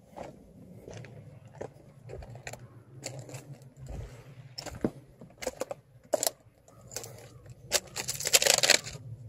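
Footsteps on bare slaty rock and loose stone flakes: irregular scuffs and clicks of shoe soles, with a longer, louder scrape near the end.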